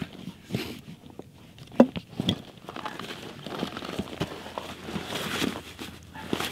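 Backpack being lifted off the snow and swung onto the back: fabric rustling and crinkling with scattered knocks, the loudest a sharp knock about two seconds in, and boots shuffling in snow.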